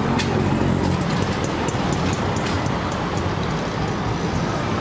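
Steady low rumble of street traffic, with a few light clicks of a spatula stirring noodles in an aluminium pot.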